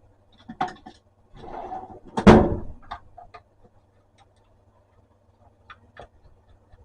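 Plastic belt cover of an electric hand planer being unclipped and taken off: a few clicks and a short scrape, one loud knock a little over two seconds in, then a few light taps.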